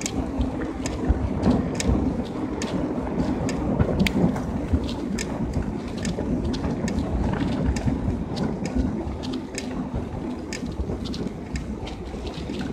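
Riding a bicycle on wet asphalt: wind buffets the microphone with a steady rumble, the tyres hiss on the wet road surface, and irregular sharp clicks and rattles come through.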